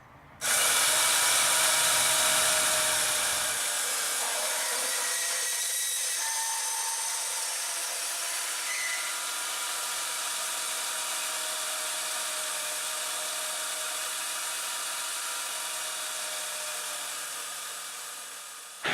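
Chicago Electric 10 amp deep cut variable speed portable band saw running, its motor and blade starting suddenly with a steady high-pitched whine and hiss. The sound slowly eases off and dies away near the end.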